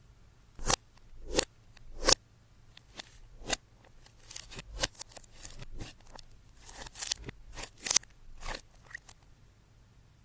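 Slime and makeup being worked by hand: a series of short crackling pops and snaps, about a dozen, several swelling quickly to a sharp snap.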